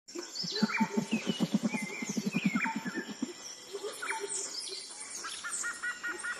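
Birds singing and chirping, with many short whistled notes and glides, over a low, fast pulsing call of about eight pulses a second that stops a little past halfway. Near the end, a bird repeats a short double-note chirp about three times a second.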